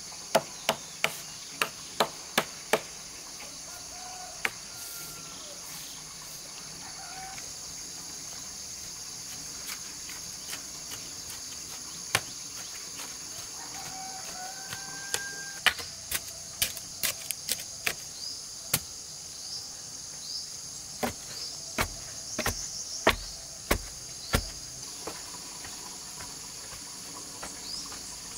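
Steady chirring of crickets, with a few short bird calls, broken by sharp knocks from handling bamboo poles. Between about 21 and 24 seconds come several heavier, deeper thuds, as of a bar striking into earth.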